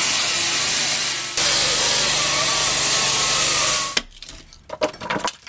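Power saw cutting steadily for about four seconds, a loud hiss with a faint whine. It then stops, leaving a few scattered knocks and clicks.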